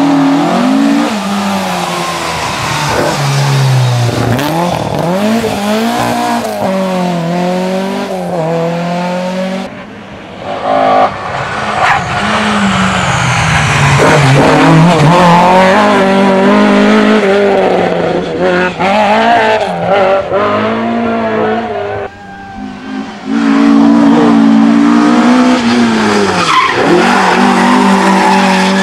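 Ford Escort Mk II rally car's four-cylinder engine revving hard through bends, its pitch climbing and dropping again and again with throttle and gear changes, with tyres squealing as the car slides. The sound breaks off and picks up on a new pass twice, about ten and twenty-two seconds in.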